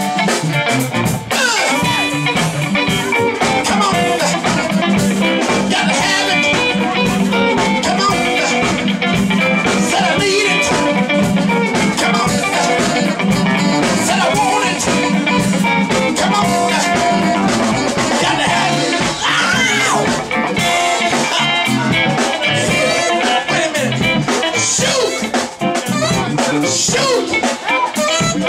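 Live band playing: electric guitar, drum kit and saxophone, steady and loud with no break.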